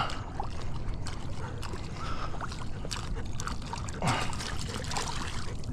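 Hooked redfish thrashing and splashing at the surface beside the boat: steady water noise broken by many short splashes.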